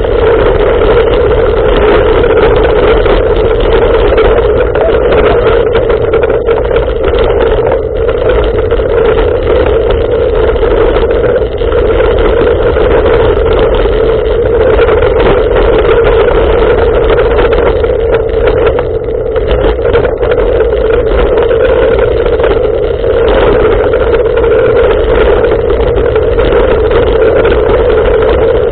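Steady loud riding noise from a Boardman bicycle ridden fast over a rough gravel-and-mud track: tyres on the surface and wind on a handlebar-mounted camera.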